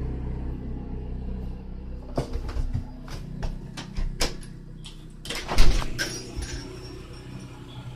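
A steady low hum, with a run of irregular clicks and knocks from about two seconds in and a louder thump a little before six seconds.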